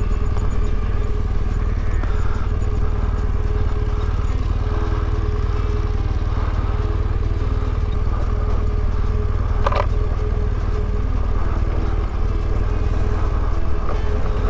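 BMW GS motorcycle engine running steadily at low speed on a rocky dirt track, with a low rumble underneath. One brief sharper sound cuts in about ten seconds in.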